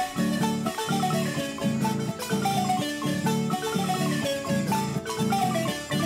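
Nicaraguan marimba ensemble music: quick runs of ringing mallet notes on the marimba over a steady, evenly repeating low accompaniment.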